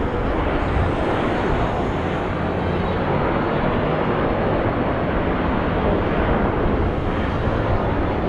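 Steady engine noise from a formation of two EA-18G Growler jets and an FG-1D Corsair flying past together.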